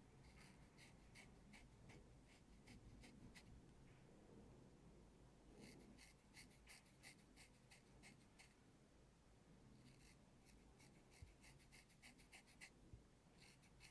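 Faint, light scratching of a dermaplaning razor's blade stroking across facial skin and shaving off fine hair, in quick runs of short strokes about three a second, with brief pauses between runs.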